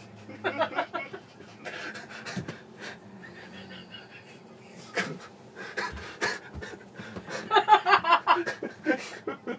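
People laughing hard and breathlessly, with gasping breaths between bursts and louder laughter near the end.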